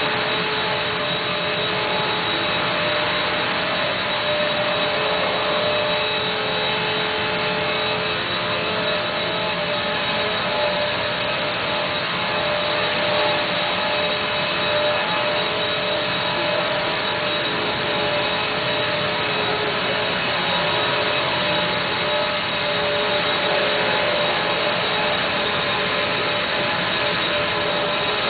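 Electric motor and propeller of a Parkzone Cessna radio-controlled model plane in flight, a steady whine whose pitch wavers a little as it flies about.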